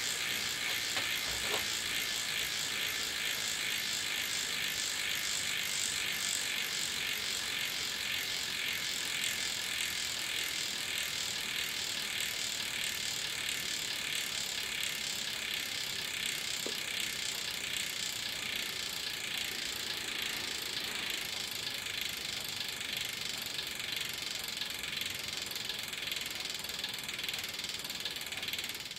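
American Classic rear freehub clicking as the wheel coasts, a fast steady buzz of pawl ticks with a faint regular pulsing. It eases slightly as the wheel slows down.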